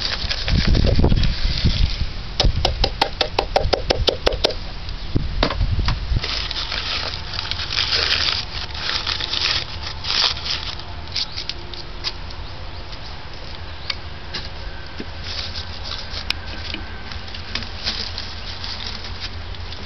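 Handling noise of a man working loose earth with a plastic cup around a brick charcoal-kiln opening: a dull rumble at first, then a quick run of clicks for about two seconds, then scattered scrapes and knocks that fade to quieter rustling.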